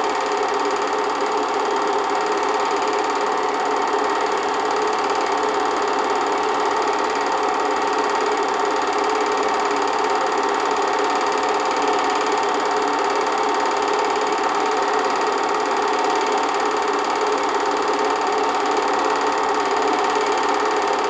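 8mm film projector running: a steady mechanical whir that holds unchanged throughout.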